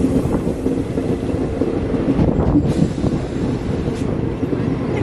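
Passenger train running along the track, heard from an open carriage window: a steady rumble of wheels on rails with wind buffeting the microphone.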